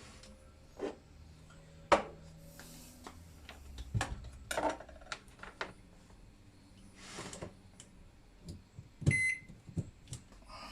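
Scattered clicks and knocks of parts being handled on a microwave oven, the sharpest about two seconds in, then a single short beep from the microwave's keypad about nine seconds in.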